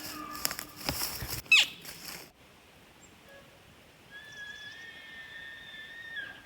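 Bull elk bugling: a high whistle held steady for about two seconds in the second half. Near the start there is rustling handling noise and a short, loud falling whistle.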